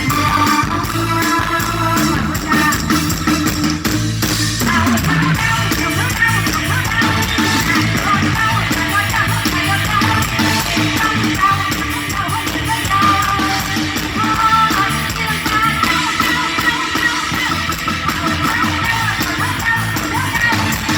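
Live band music with singing and electric guitar, played loud over a rot hae sound-truck PA system.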